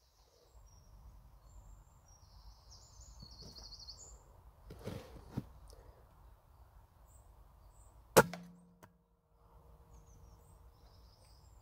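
A single shot from a Weihrauch HW100 pre-charged pneumatic air rifle about eight seconds in: one sharp crack with a brief ringing after it.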